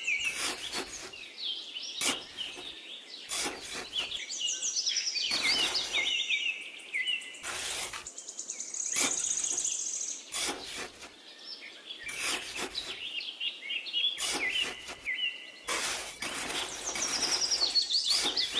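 Small birds chirping and twittering in quick repeated notes, with scrapes of a small metal trowel digging into loose sand every second or two.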